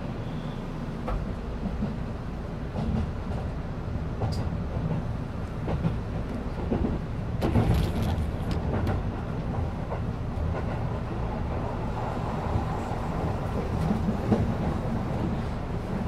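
Keihan limited express train running, heard from inside the car: a steady rumble of wheels on rail with occasional short clicks.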